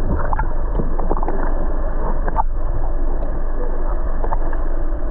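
Boat engine running steadily, a deep continuous drone under the noise of the moving boat.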